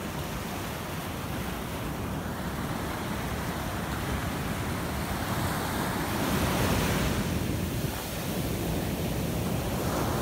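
Sea surf washing up a sandy beach in a steady rush, with one wave swelling louder a little past the middle. Wind buffets the microphone.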